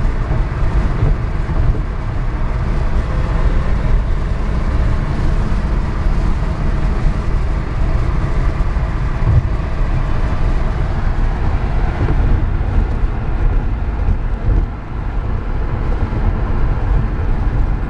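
Cabin noise of an electric-converted 1978 Porsche Carrera, driven by two WarP 9 motors, cruising at about 75 mph in fourth gear: a steady low road-and-wind rumble with no engine note, easing off briefly about 15 seconds in.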